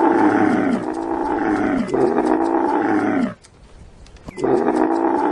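Loud, drawn-out roaring calls from a large animal, each sliding down in pitch. One call runs into a second about two seconds in, and after a short pause a third starts a little past four seconds in.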